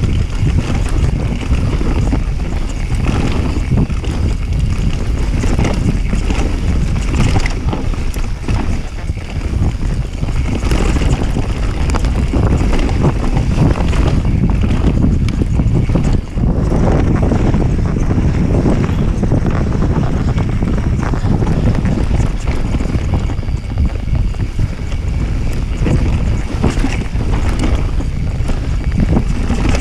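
Mountain bike descending a dirt forest trail at speed: wind buffeting the microphone over the steady rumble of tyres on dirt, with frequent knocks and rattles as the bike runs over roots and bumps.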